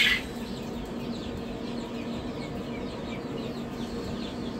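Newly hatched chicks peeping inside an incubator: many short, falling cheeps, several a second, over a steady low hum.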